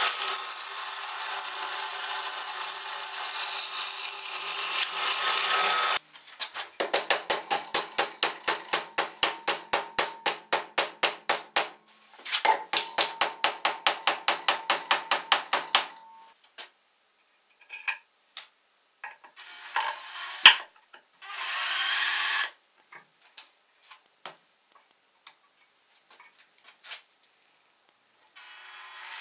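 A drill press boring through a steel flat bar, a steady grinding whine for about six seconds. Then come rapid back-and-forth hand strokes on the bar clamped in a vise, about four a second, in two runs. Scattered knocks and short bursts of a cordless drill follow.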